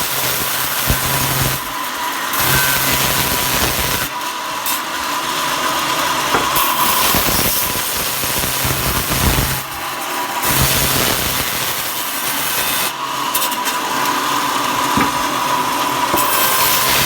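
Woodworking power tool running and cutting wood: a loud, steady machine noise with a high whine, changing abruptly several times.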